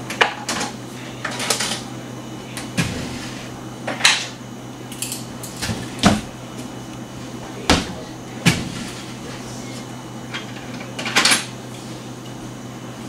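Rummaging in a kitchen drawer: irregular clinks and clacks of utensils knocking together and against the drawer, scattered sharp knocks over a steady low hum.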